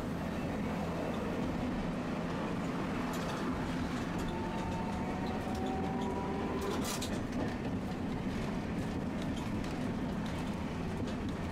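Tosaden streetcar running along its rails with a steady low rumble. A faint whine rises slightly in pitch midway through, and a couple of sharp clicks come about three and seven seconds in.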